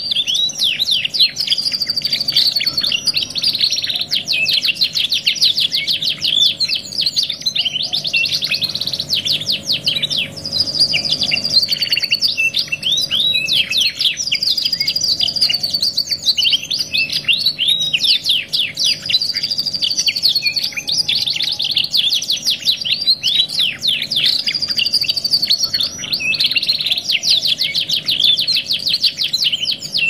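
Two domestic canaries singing together, an unbroken stream of fast, high-pitched rolling trills and chirps.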